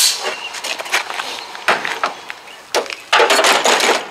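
Rusty sheet-metal pieces of a car floor clanking and scraping as a cut floor brace is pried and pulled loose by hand, in a run of separate knocks with a louder, harsher scrape about three seconds in.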